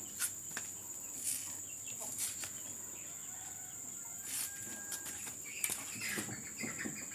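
Steady high-pitched chirring of insects, with a few sharp clicks or knocks scattered through and a bird, likely a chicken, clucking near the end.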